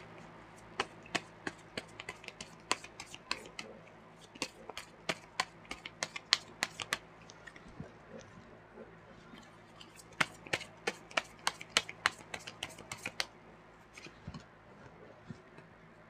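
Tarot cards being shuffled by hand and dealt onto a marble tabletop: a long run of quick, irregular card snaps and clicks that thins out after about thirteen seconds.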